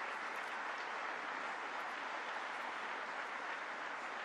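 Audience applauding steadily in a theatre hall.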